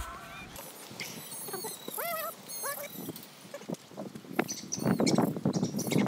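Several short, wavering bleats from goats, with birds chirping high above them. From about four seconds in, footsteps crunch on gravel.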